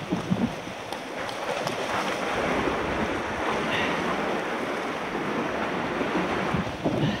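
Surf washing on the shore with wind buffeting the action camera's microphone, a steady rushing noise broken by a few brief knocks.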